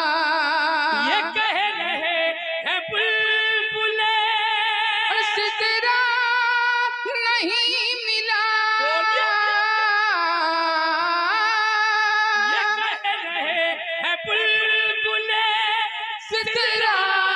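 Man singing a naat (Urdu devotional poem) through a microphone and PA, drawing out the refrain in long held notes with wide vibrato and ornamented runs.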